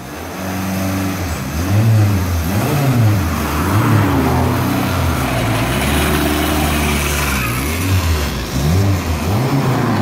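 Formula Ford single-seater racing car engine running and being revved, its pitch rising and falling again and again with the throttle, with a steadier stretch in the middle, as the car pulls away down the pit lane.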